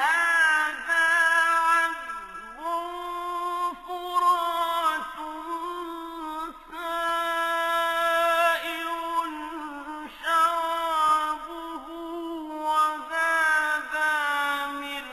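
Quranic recitation in Arabic: one reciter chanting in long, held melodic phrases with ornamented glides between notes.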